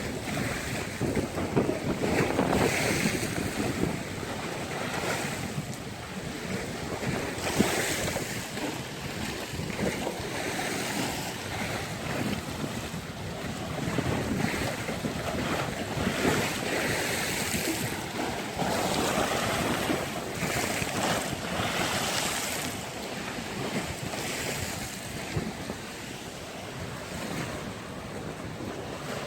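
Storm-driven waves on a lake washing and slapping in surges every few seconds, with gusty wind buffeting the microphone.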